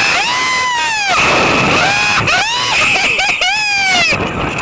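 Riders on a slingshot reverse-bungee ride screaming as they are launched skyward. Several long, loud screams rise and fall in pitch.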